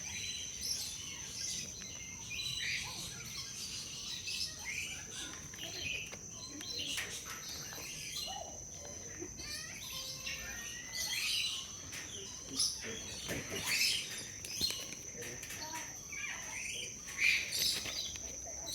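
Many birds chirping and calling at once in quick, overlapping short notes, over a steady high whine.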